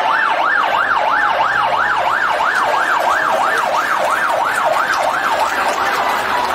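Fire engine siren on the fast yelp setting, its pitch sweeping up and down about three times a second as the truck drives past, then weakening near the end.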